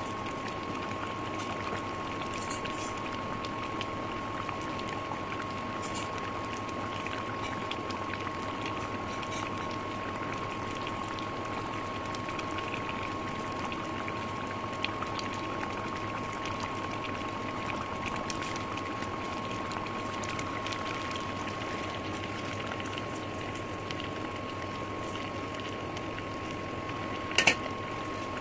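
Meat-and-potato curry simmering in a pot on the stove, a steady bubbling hiss with a constant high tone under it. Near the end a brief sharp clatter as soaked grains are tipped into the pot.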